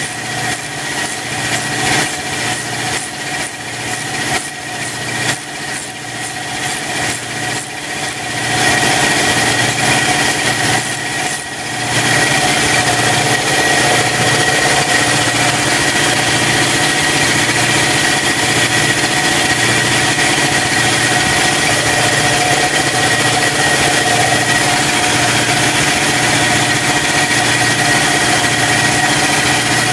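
A ratchet clicking rapidly as it runs down the nut on a valve-spring compressor plate. About eight seconds in, a steady motor starts running with a constant hum and a slow, even pulse, and it keeps going.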